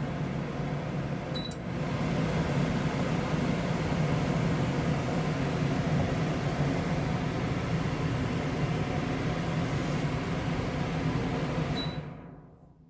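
KitchenAid 400 CFM under-cabinet range hood blower running. A short beep from its controls about a second and a half in, then the fan steps up to a louder, higher speed. Near the end another beep and the fan winds down and stops.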